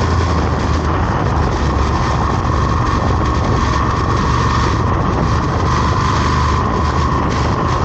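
Road vehicle under way: a steady, even engine drone with a constant rush of road and wind noise.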